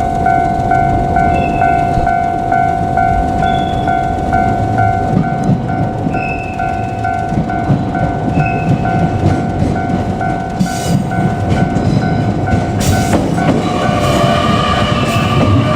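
Japanese level-crossing warning bell ringing, a steady two-tone clang about twice a second, over the low rumble of an electric train running. About 13 seconds in the bell stops and other high ringing tones take over.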